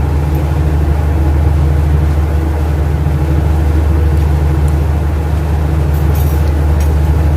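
Steady low drone of an offshore supply ship's engines running, with a few faint light clicks near the end.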